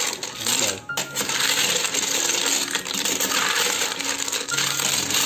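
Snail shells clattering against each other and the sides of a stainless steel pot as a metal ladle stirs them: a continuous rattle of small clicks.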